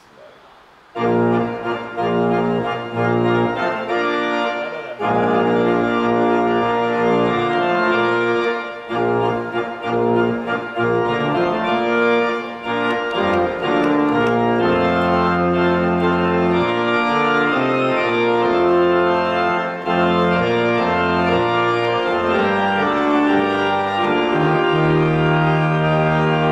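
Church organ playing a hymn in full chords over a deep pedal bass, starting about a second in. The chords are slightly detached, with brief gaps between them, and there is a short break about five seconds in.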